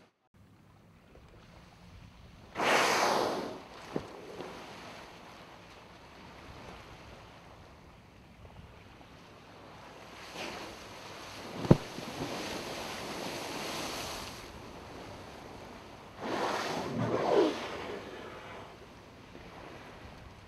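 Wind and sea noise on open water, with two loud rushing bursts, one about three seconds in and one near the end, and a couple of sharp knocks.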